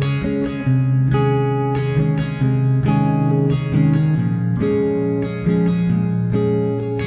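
Background music of plucked guitar notes and chords ringing out, a new one about every half second.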